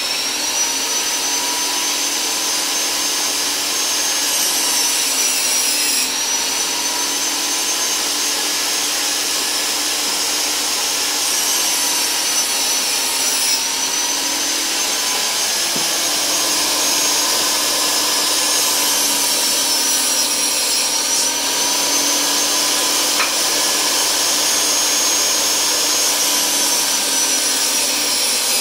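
Portable table saw running steadily, its motor note dipping each time a wooden frame piece is pushed through to cut a shallow channel for glass and backer board, about every eight seconds.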